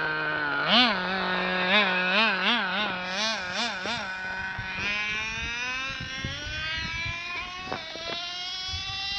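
CEN radio-controlled car's small engine running steadily, then blipped on the throttle about eight times in quick succession. From about five seconds in it revs up in one long, steadily rising pitch as the car accelerates.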